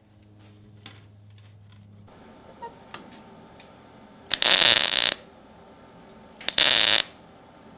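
Two short bursts of MIG welding on thin sheet steel, each starting and stopping sharply, the second shorter than the first: tack welds fixing a patch panel to a Willys MB jeep's body tub. A couple of faint clicks come before them.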